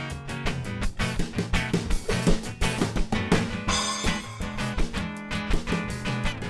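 Instrumental break of a live song: strummed guitar with a steady percussion beat, no vocals.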